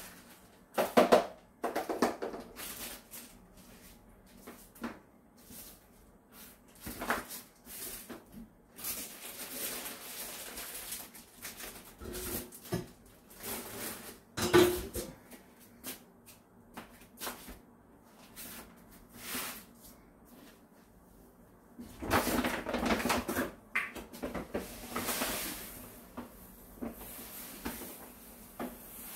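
Intermittent handling noises: rustling of a plastic bag and light knocks and clatter of objects set down on the floor, with a busier stretch of rustling about three-quarters of the way through.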